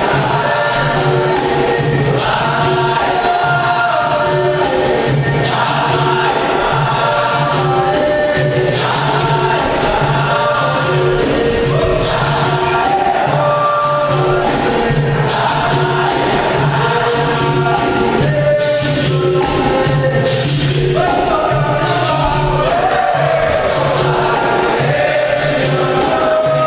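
Capoeira roda music: a group singing in chorus over berimbaus and an atabaque drum, with a fast, steady percussion beat.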